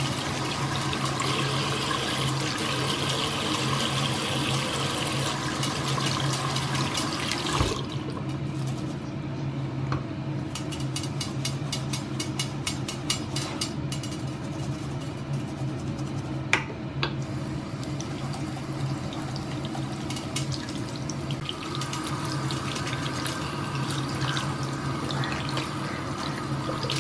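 Tap water running into a bathroom sink while makeup brushes are washed and rubbed over a silicone brush-cleaning pad, over a steady low hum. The flow eases with a knock about eight seconds in. In the middle comes a run of quick, even scrubbing strokes, followed by a single sharp knock.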